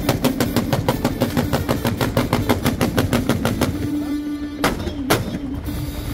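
Fireworks going off in rapid bangs, several a second. The bangs thin out about four seconds in, and two louder single bangs follow near the five-second mark.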